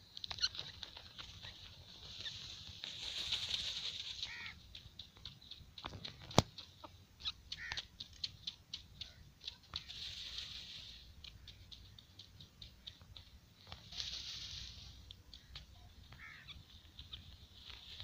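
Partridges dust-bathing in dry sand: three bursts of wing-shaking and fluttering that scatter sand, with small ticks of grit in between. A single sharp click about six seconds in is the loudest sound.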